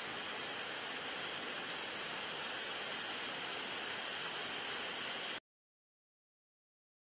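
Steady rushing of a waterfall that cuts off suddenly a little after five seconds in, leaving dead silence.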